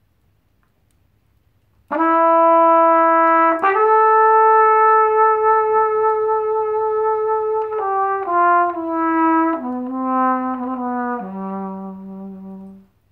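Trumpet playing a slow improvised blues phrase, starting about two seconds in: a held note, a longer higher note, then a falling run of shorter notes ending on a low note that fades out.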